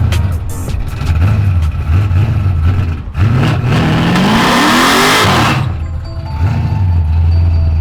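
A car engine revving up hard for about two and a half seconds, its pitch rising, over background music with a heavy bass beat.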